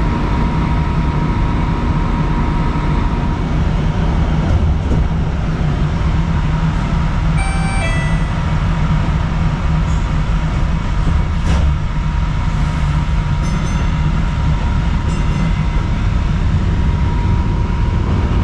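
Kinki Sharyo light rail car running along the track: a steady low rumble with a thin, steady high tone running through it.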